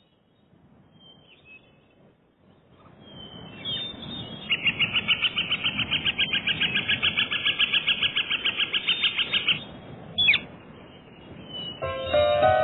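A bird singing a fast, even trill of about nine notes a second for around five seconds, then a single short falling note. Plucked-string music comes in near the end.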